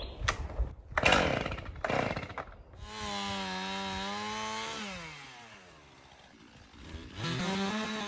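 Two-stroke chainsaw being pull-started: a few rough cord pulls, then the engine catches about three seconds in and runs at a steady high pitch. After a couple of seconds it winds down and fades, then picks up again and runs steadily near the end.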